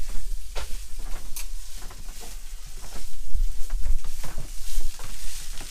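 Footsteps and handling noise as a kettle is fetched from the galley hob: scattered clicks and knocks with low thuds, and a clunk as the kettle is lifted.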